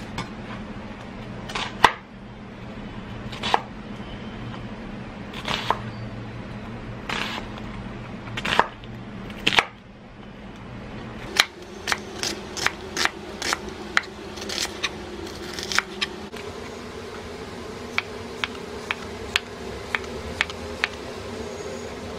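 Kitchen knife chopping on a cutting board, slicing an onion and then hotdog sausages: single cuts a second or two apart at first, a quicker run of cuts about halfway through, then light, even taps about two a second near the end, over a steady low hum.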